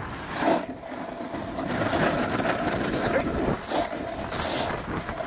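Snowboard sliding and carving down groomed snow: a rough scraping hiss from the board's base and edges that swells and fades several times as the rider turns, with wind buffeting the microphone.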